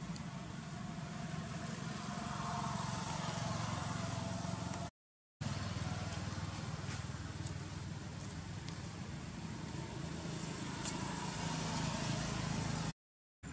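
Steady low background rumble, broken by two brief total dropouts, about five seconds in and near the end.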